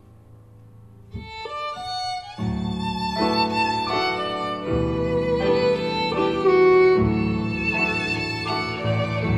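Background instrumental music led by a fiddle. It is soft at first, a new passage enters about a second in, and it grows fuller at about two and a half seconds.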